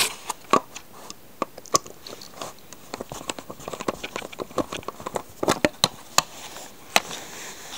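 Small screws being undone from a plastic model-locomotive base with a screwdriver: irregular light clicks and scrapes of metal on plastic, with the base being handled.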